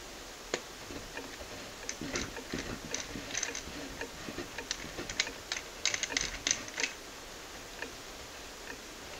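Irregular small clicks and ticks, thickest from about two to seven seconds in, as a screwdriver turns a screw in a 3D printer's frame.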